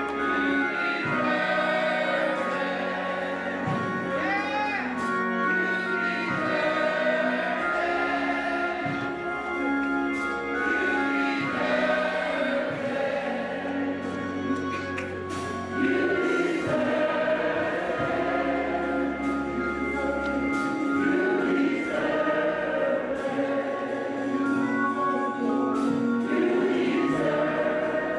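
Gospel choir singing a praise and worship song, continuous and steady in level.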